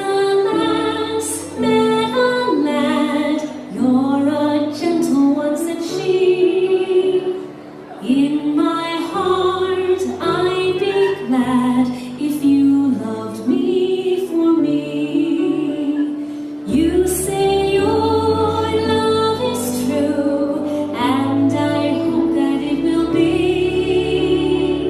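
A song sung by a female voice over instrumental backing, the melody moving in long held notes.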